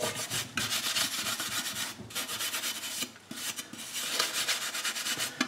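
A steel-wool soap pad (Brillo pad) scrubbing an aluminium toy-car base plate with rapid back-and-forth strokes to rub off the dirt. The scrubbing comes in several short runs broken by brief pauses.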